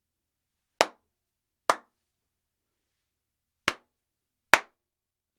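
Hand claps picked up through a Shure SM58 dynamic microphone: two pairs of sharp claps, each dying away quickly, as a test of how much the blanket-damped room reverberates.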